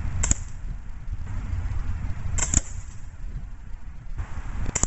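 BB gun shots aimed at a plastic LEGO fort: short, sharp cracks, one just after the start, a quick double about halfway through, and one more at the end.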